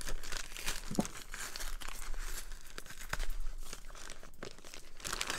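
Brown paper mailer bag crinkling and crackling as hands pull at its top edge to open it, with some tearing of the paper.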